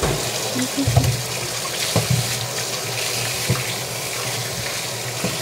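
Kitchen tap turned on and water running steadily into the sink, with a few light knocks in the first few seconds.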